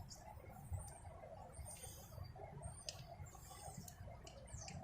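Faint light clicks and scratching with a few short high squeaks, typical of small metal parts and hand tools being handled.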